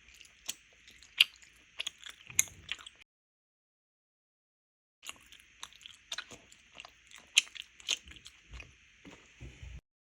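Close-miked crunchy chewing and biting, a quick irregular run of crisp crackles over a steady hiss. It comes in two stretches with a fully silent gap of about two seconds between them.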